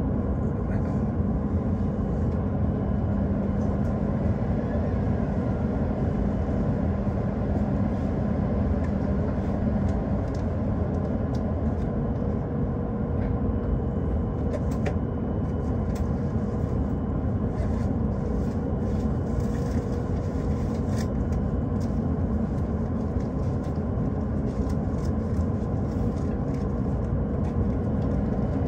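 Steady rumble and hum inside a Shinkansen passenger car, with an even low noise and two constant droning tones.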